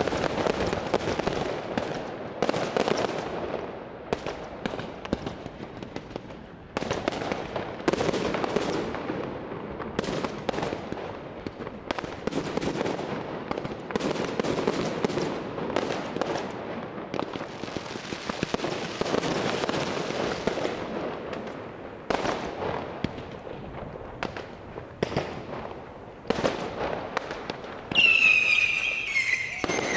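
Aerial fireworks display: repeated sharp bangs of bursting shells with crackling between them. Near the end a high, falling tone sounds.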